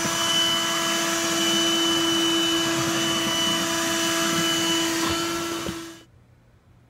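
Black+Decker Dustbuster lithium handheld vacuum running at speed, a steady motor whine over a rush of air as it picks up PVC sawdust. It cuts off suddenly near the end, leaving only faint room tone.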